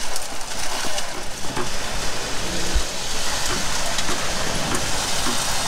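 Concrete pump truck running steadily while pumping ready-mix concrete into a column footing, under a continuous hissing noise, with a single low thump about three seconds in.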